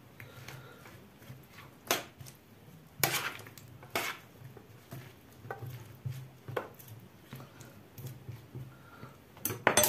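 Sliced potatoes being spread by hand and with a spoon in a metal baking tray: scattered clicks and knocks against the tray, the loudest near the end.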